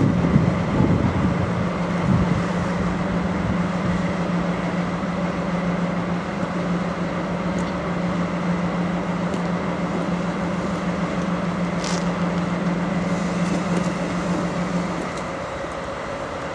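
DD51 twin-engined diesel-hydraulic locomotive running at the platform, a steady drone that stops about fifteen seconds in. A brief hiss comes near twelve seconds.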